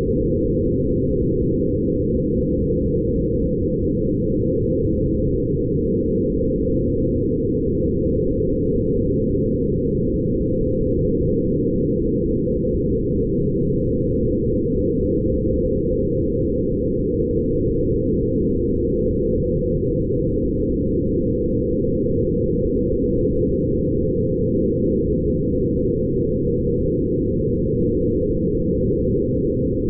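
Sonified photographs of light, made by passing images through sound editing software: a steady, low, grainy drone with nothing high in it and no change in level.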